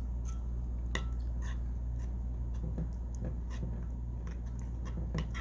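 A few light, scattered clicks and taps over a steady low hum.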